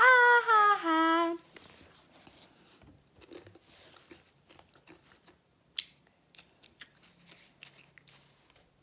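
A girl's drawn-out, exaggerated vocal cry lasting about a second and a half, high and falling in pitch. Then quiet, with scattered faint clicks and one sharper click about six seconds in.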